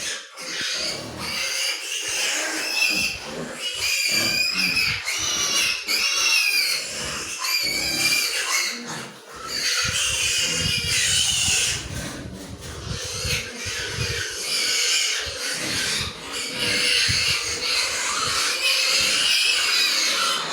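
Pigs squealing, high wavering squeals coming one after another.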